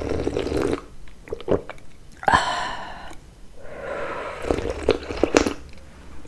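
Tea slurped from a saucer held to the lips, close to the microphone: three long sipping slurps with small wet mouth clicks between them.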